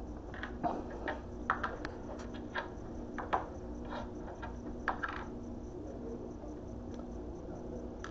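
Small pills, tablets and capsules, clicking and sliding on a wooden desk and a laptop as a hand moves them about: light scattered clicks, most of them in the first five seconds, then only a few. A steady low hum runs underneath.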